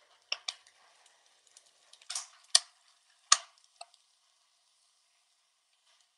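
Bacon and shredded hash browns sizzling faintly on a propane flat-top griddle. Several sharp clicks and knocks in the first four seconds, two of them louder than the rest.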